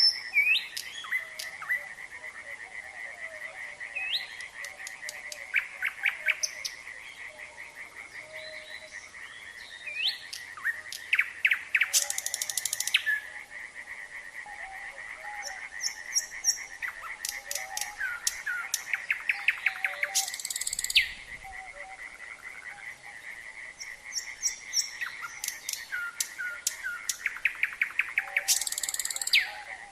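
A nightingale singing in repeated phrases of rising whistles, rapid series of clicking notes and short harsh buzzing trills. Under it is a steady chorus of frogs croaking, all on about one pitch.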